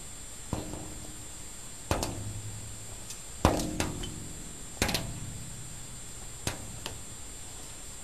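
A string of about ten sharp knocks or taps, some in quick pairs, spaced roughly a second or more apart, with a faint steady high whine underneath.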